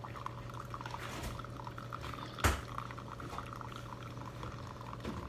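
Keurig K-Elite coffee maker brewing: coffee streaming and sputtering into a mug over a steady low hum, with one sharp click about two and a half seconds in.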